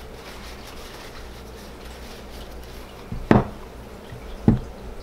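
Faint rustling of a paper towel wiping down a spinning reel, with two short dull knocks about a second apart in the second half as the reel is handled and set down on the table.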